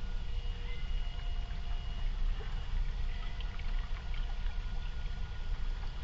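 Shallow creek water running around an RC rock crawler truck as it creeps through, heard as a steady low rumble with faint thin tones coming and going above it.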